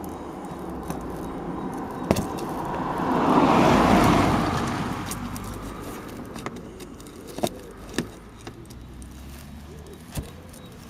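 A car passing by, its tyre and engine noise swelling up and fading away over several seconds, loudest about four seconds in. A few sharp clicks and clinks of tools and plastic fittings come before and after it.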